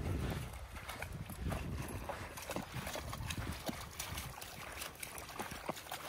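Shallow lake water splashing and lapping at the shore, a string of small, irregular splashes and clicks.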